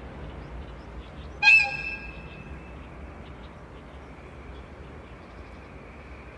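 A DD16 diesel locomotive's horn sounding one short, loud blast about a second and a half in, over a steady low rumble.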